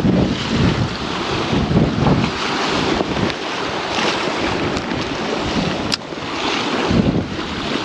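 Gale-force wind buffeting the microphone in gusts over the wash of breaking sea surf. A single short click about six seconds in.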